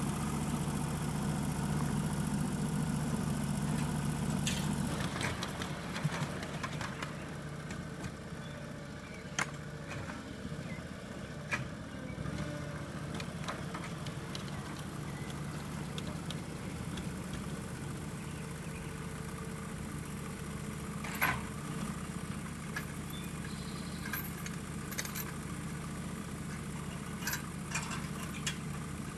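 Small engine idling steadily, a little louder for the first few seconds, with scattered metal clicks and clanks from the rolling stock of a 1/8-scale ride-on railroad. Near the end a coupler's safety chain rattles as two tank cars are uncoupled.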